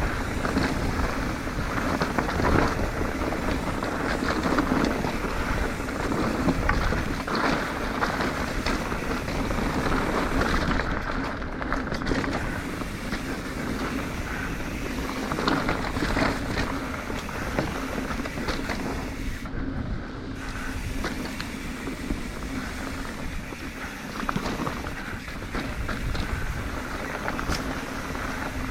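Yeti SB150 mountain bike rolling over a dirt trail: a continuous rumble of tyres on dirt and rock with many small rattles and knocks from the bike, and wind rushing over the microphone.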